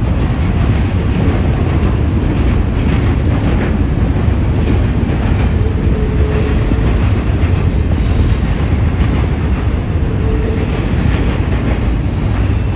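Double-stack intermodal well cars rolling past close by: a steady, loud rumble of steel wheels on rail, with a faint wheel squeal twice after the middle.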